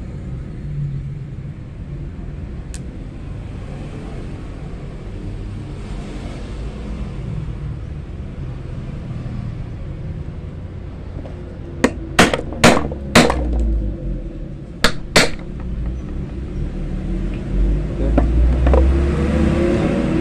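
Steady low rumble of road traffic passing nearby. About twelve seconds in, four sharp clicks come in quick succession, then two more a couple of seconds later.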